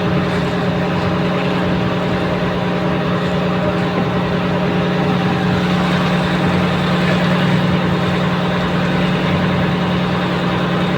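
Small fishing boat engine running steadily at one constant speed, a loud, even hum.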